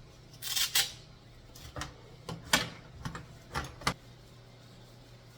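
Light clicks and clinks of small hard objects being handled, about six spread over a couple of seconds, with a brief hiss or rustle about half a second in.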